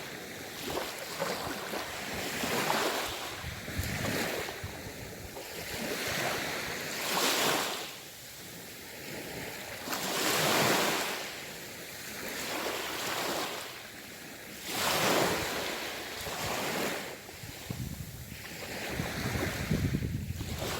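Sea waves surging in and washing back, one swell every two to three seconds. Wind rumbles on the microphone near the end.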